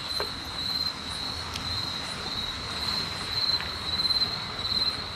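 Crickets chirping at night: a steady high-pitched trill that swells and fades every second or so.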